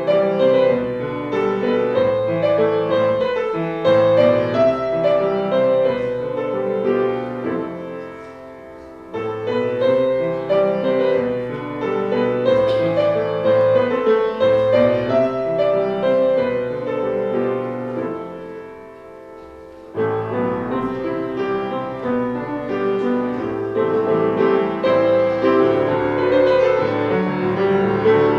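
Slow, classical-style piano music. It drops away briefly about eight seconds in and again about eighteen seconds in, coming back in suddenly each time.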